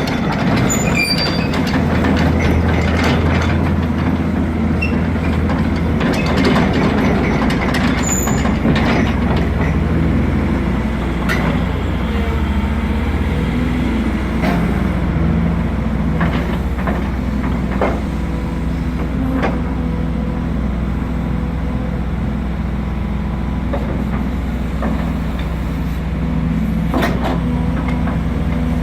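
Volvo EC210B crawler excavator's diesel engine running steadily. Its pitch shifts a few times between about 6 and 12 seconds in, and a few sharp knocks come through at intervals.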